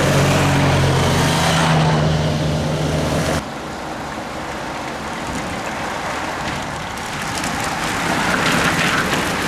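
Race escort motorcycles' engines running steadily as they pass. About three and a half seconds in the sound cuts abruptly to a peloton of racing bicycles riding over cobblestones: a steady rushing noise with a crackling rattle that grows toward the end.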